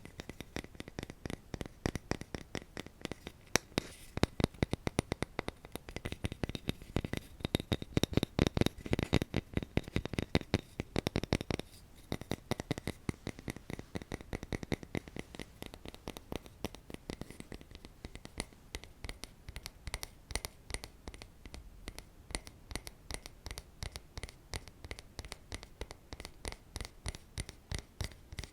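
ASMR tapping and scratching on an object: a rapid, dense run of small clicks and scrapes, heavier for the first eleven seconds or so, then lighter.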